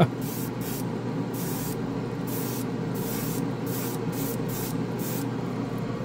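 Gravity-feed airbrush spraying paint in a string of short hissing bursts, about ten, each a few tenths of a second, as the trigger is worked. Underneath is the steady running of a waterfall spray booth's fan and water curtain.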